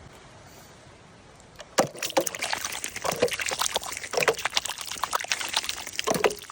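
Water splashing and pouring in an irregular run of small splashes and knocks, starting suddenly a little under two seconds in after a quiet stretch.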